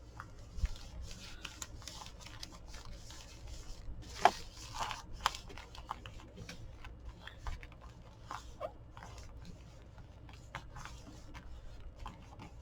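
Paper being handled at a craft table: soft rustling and crinkling with scattered small clicks, and one sharper click about four seconds in.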